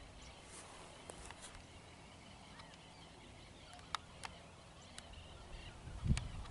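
Several short, sharp bird calls, faint and scattered through, from birds flying over the field. A low rumble comes in near the end.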